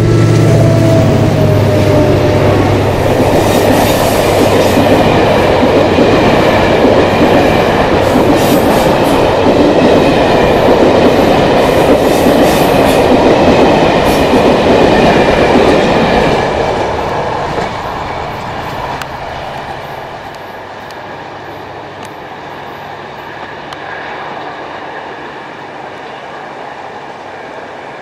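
Passenger train hauled by two diesel locomotives, an LDE2100 and a NoHAB, passing close by: the locomotives' engines hum low for the first couple of seconds, then the coaches' wheels rumble and clack over the rails, loud until about two-thirds of the way through, before the sound fades as the train moves away.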